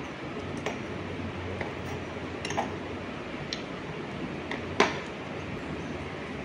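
Miniature toy kitchen pieces being picked up and set down on a hard stone floor: a few separate light clicks and clinks, the sharpest about five seconds in.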